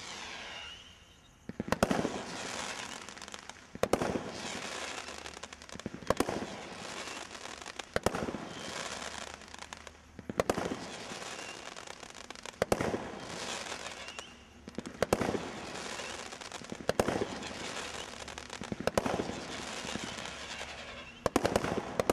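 A 12-shot Brothers Pyrotechnics 'Ultimate Battle of Colours' garden combination Roman candle firing about ten shots, a sharp bang roughly every two seconds, each followed by a spell of fizzing noise from the bursting stars.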